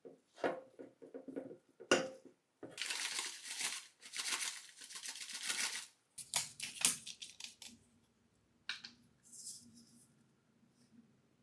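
Packaging rustling and tearing for a few seconds amid light handling clicks and knocks, followed by a faint steady hum.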